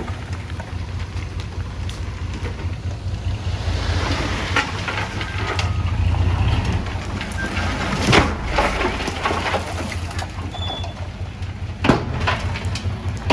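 Bulldozer diesel engine running with a steady low rumble, with scattered clanks and knocks; a sharp knock about eight seconds in and another near the end.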